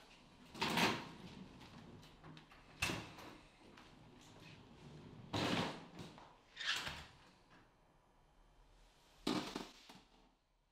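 An apartment door being opened and shut, among a handful of separate knocks and rustles a second or two apart.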